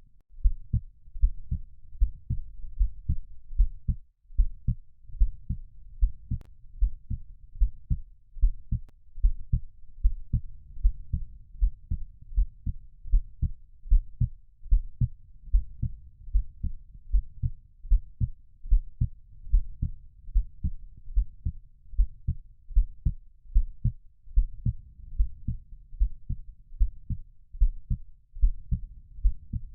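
Heartbeat: a steady, even rhythm of soft, low lub-dub thumps, with a faint low rumble between the beats.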